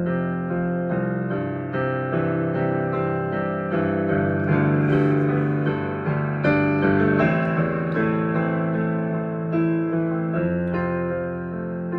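Solo piano improvising slow, sustained chords with a melody on top, notes struck about every half second and left to ring.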